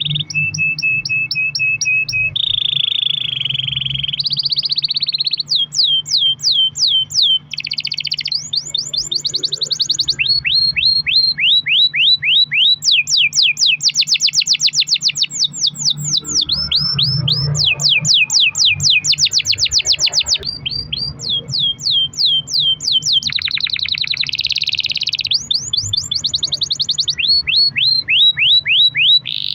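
A canary singing a long, unbroken roll song: runs of fast repeated notes, many of them quick downward sweeps, switching to a new trill every second or two.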